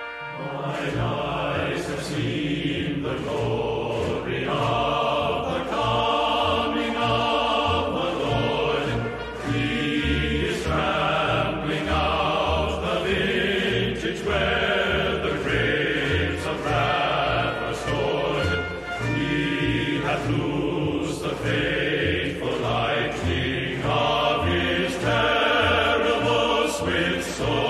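Background music: choir-like voices singing over a steady, pulsing bass line.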